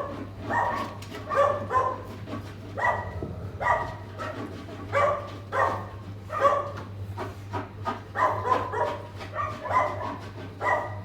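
Dogs barking again and again, roughly one to two short barks a second, over a steady low hum.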